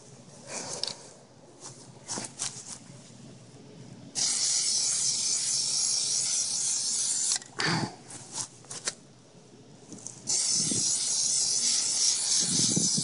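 Plasti Dip aerosol can spraying a coat in two long, steady hissing passes of about three seconds each, the first starting about four seconds in and the second near the end. Between them come a few short knocks and clicks.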